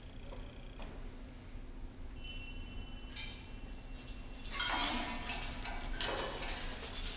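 Concert wind band in a soft passage. High, bell-like percussion notes enter about two seconds in, then a louder, denser wash of ringing high notes starts a little past the middle.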